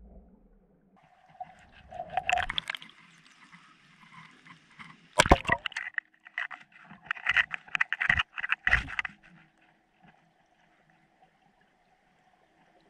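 Water sounds picked up underwater, with bursts of rapid clicks and knocks over a faint steady hum. The clicks come in clusters about two seconds in and again from about five to nine seconds in, the loudest near five seconds.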